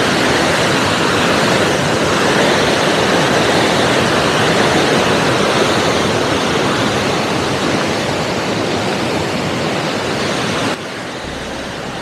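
Rushing mountain river: a loud, steady rush of turbulent water that drops abruptly to a quieter level near the end.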